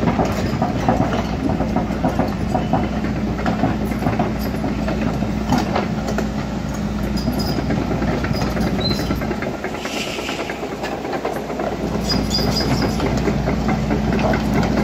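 Volvo crawler excavator travelling on its steel tracks over gravel: the diesel engine running steadily under the clanking and rattling of the track chains. It grows louder near the end as the machine comes closer.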